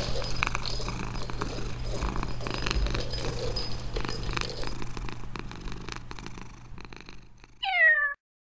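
Domestic cat purring close up, fading away toward the end. Near the end comes a short meow falling in pitch, cut off abruptly.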